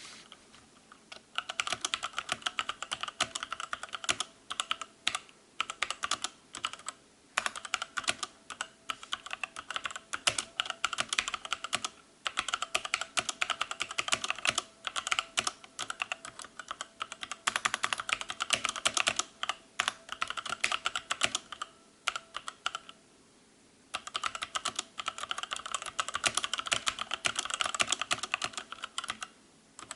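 Fast typing on a mechanical keyboard: a dense run of key clacks with a few brief pauses, and a longer pause about 23 seconds in.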